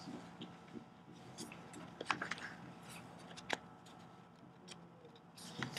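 Dry-erase marker writing on a whiteboard: a run of quiet, short scratchy strokes with a couple of brief squeaks as letters and digits are written.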